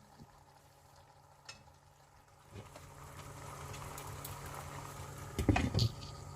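Chicken and onion masala with blended tomato sizzling in a pot as it is stirred. The sizzle rises in about two and a half seconds in, with a few dull knocks near the end.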